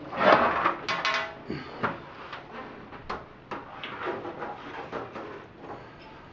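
A metal 4U rackmount server case being picked up off a glass table and moved: a loud scrape and clunk about a quarter second in, then a string of scattered knocks and clicks from the handling.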